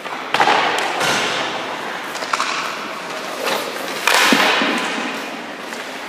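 Ice hockey goalie's skates scraping the ice and his leg pads sliding and dropping onto it in butterfly movements: a run of sudden scrapes, the strongest about half a second in and about four seconds in.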